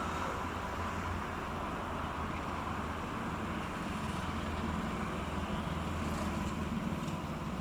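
Boat engine running steadily as a vessel passes, a constant low drone.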